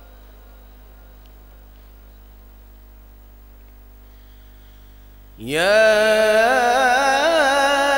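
Steady mains hum from the amplified microphone during a pause in the recitation, then about five seconds in a man's voice starts loud, melodic Quran recitation, long held notes with wavering, ornamented pitch.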